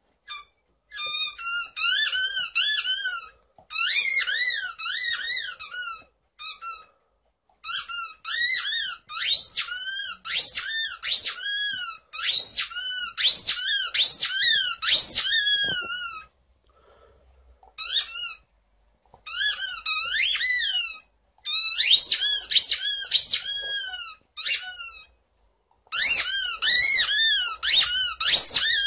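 A dog's squeaky toy squeezed again and again as an Alaskan Malamute chews it. It gives rapid runs of high squeaks, each bending up and down in pitch, with short pauses between runs.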